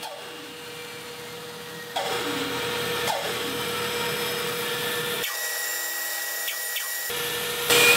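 Bandsaw running and cutting through a maple board: a steady motor hum under the noise of the blade in the wood. The level and tone shift abruptly about two seconds in and again near the end.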